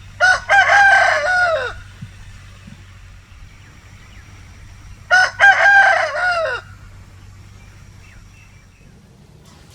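A rooster crowing twice, about five seconds apart. Each crow is a few short notes running into a long drawn-out note that drops in pitch at the end.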